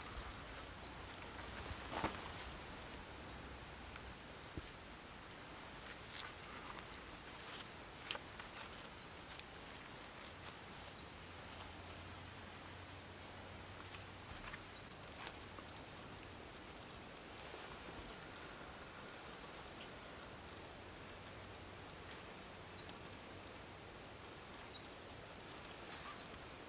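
Small birds calling in woodland: short, high chirps repeated every second or so over quiet outdoor ambience, with a few faint knocks and rustles, the sharpest about two seconds in.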